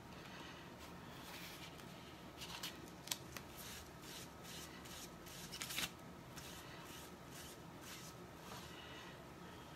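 Sticky plastic mesh transfer sheet rustling and crackling as it is lifted and handled, in short scattered crackles, loudest about three seconds in and again near six seconds.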